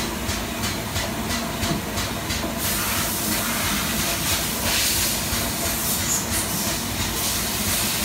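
FOODIE industrial tank-cleaning vacuum sucking cutting-fluid sludge from the bottom of a machine's coolant tank through its hose, a steady hiss of air and liquid. A quick regular pulsing, about four a second, runs for the first two or three seconds, then gives way to a stronger, brighter hiss.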